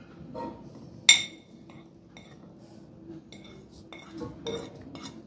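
A metal spoon clinking and scraping on a ceramic plate as turmeric and salt are scraped off into a bowl. There is one sharp ringing clink about a second in, then a run of lighter taps and scrapes near the end.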